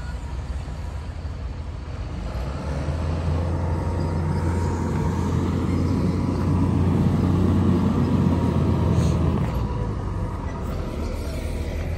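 Engine of a large Yale forklift running as it carries a long roll toward the flatbed trailer. Its low hum grows louder over several seconds and eases off near the end.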